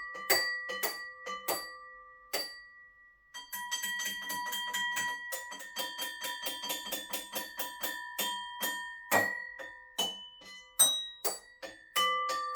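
Bell-like chiming notes played in a quick run of several strikes a second, each ringing on. There is a brief pause about three seconds in, then the run resumes.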